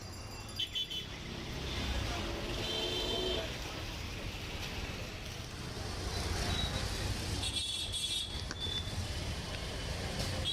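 Street traffic noise: motor vehicles running past in a steady rumble, with a few short high-pitched tones over it.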